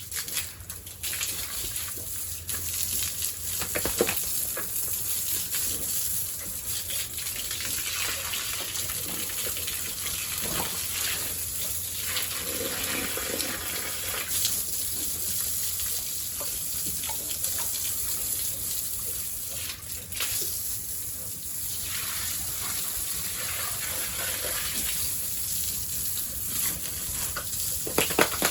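Water gushing steadily from a hose and splashing, with a few brief knocks.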